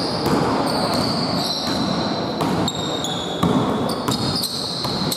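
Indoor basketball play: a ball bouncing on a wooden court and players' running footsteps, echoing in a large gym hall.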